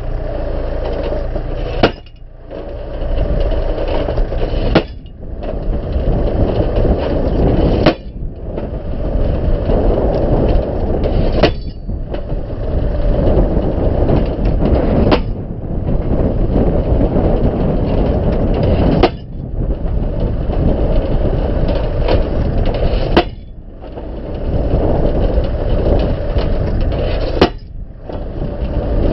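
Tractor-mounted post driver ramming a wooden fence pole into the ground: eight sharp hammer strikes on the pole, about one every three to four seconds with the gaps slowly lengthening, over the tractor's engine running.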